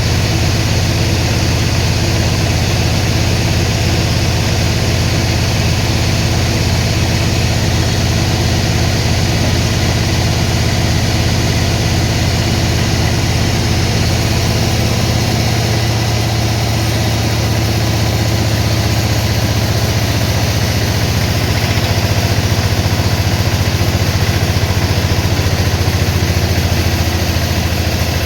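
Sawmill machinery running steadily, a loud low engine drone, with a slight change in its tone about halfway through.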